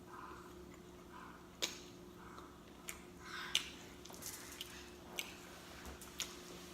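A person chewing food close to the microphone, with about five sharp mouth smacks or crunches spread through it.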